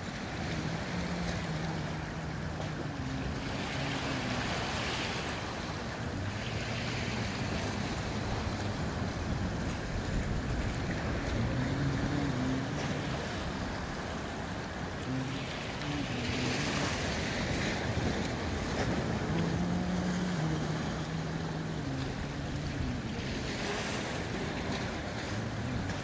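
Sea waves breaking over and washing around shoreline rocks: a steady surf noise that swells into hissing surges of foaming water every several seconds.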